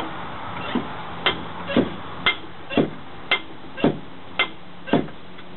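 High-pressure hand pump being stroked steadily to charge a pre-charged pneumatic air rifle's air reservoir, about one full stroke a second. Each stroke gives a sharp click and, half a second later, a short sound falling in pitch, as the rifle nears its 2,000 psi fill.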